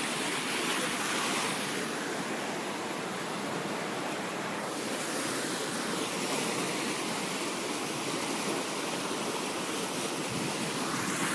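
Fast-flowing floodwater rushing through a swollen canal: a steady, even rushing noise with no breaks.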